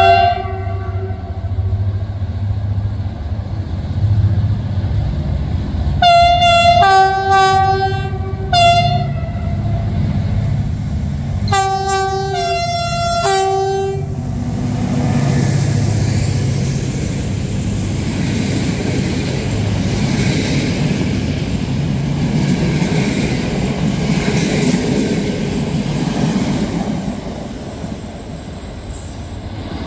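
A diesel locomotive's two-tone air horn sounds a series of short blasts: one at the start, three more around six to nine seconds in, and a quick run of alternating notes around twelve to fourteen seconds in. After that the train runs with a steady rumble and rattle that eases near the end.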